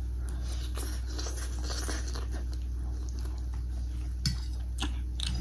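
Close-up eating sounds: soft chewing and slurping of chowmein noodles, with a few light clicks of a fork and spoon against the plate, two sharper ones near the end, over a steady low hum.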